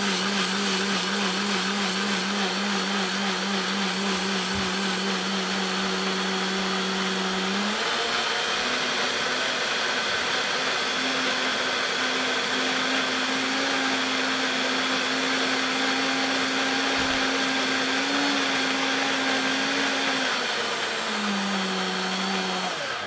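Countertop blender motor running steadily, pureeing a thick mixture of soaked mustard seeds and vinegar. Its pitch steps up about eight seconds in, drops back near the end, and then the motor cuts off.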